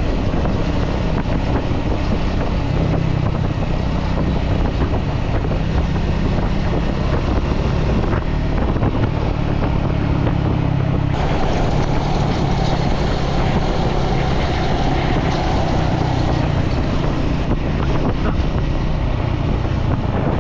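Motorcycle engine running steadily at road speed under heavy wind noise on the microphone, with a shift in the engine note about halfway through.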